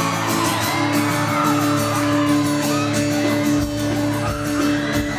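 Live band music with long held notes played over the stage PA, with a low rumble joining about three and a half seconds in. Under it, a large crowd of fans keeps screaming and whooping.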